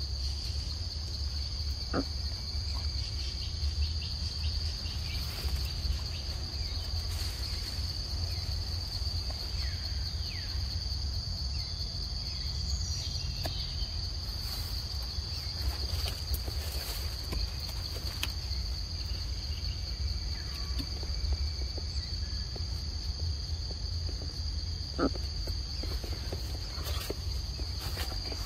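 Insects droning steadily at one high pitch, with a low rumble underneath and a few short clicks and rustles.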